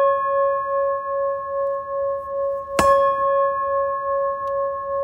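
A struck bell ringing on with a slow waver in its lowest note, struck again a little under three seconds in.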